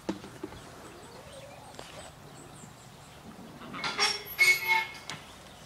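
A short, loud animal call in two parts about four seconds in, over a quiet background with a few faint clicks.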